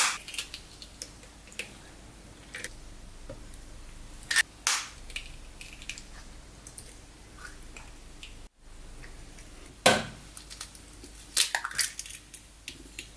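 Raw eggshells cracking and shell halves clicking as eggs are broken open and separated: a scatter of sharp cracks and clicks with quiet between them, the loudest crack about three-quarters of the way through.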